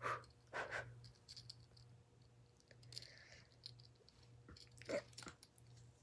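Faint clicks and scrapes of a Swiss Army knife being worked by fingernails and teeth, trying to pry its stiff big blade open, over a low steady hum.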